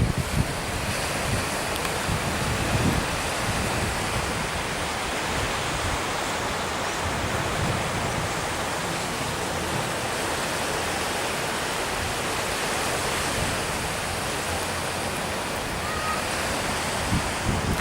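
Steady outdoor rushing noise, an even hiss without distinct surges or events.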